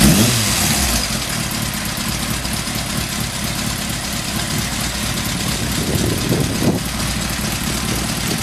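Kawasaki ZZ-R1100 inline-four engine idling through an aftermarket JMCA-approved exhaust. There is a quick throttle blip right at the start and two short blips about six and seven seconds in.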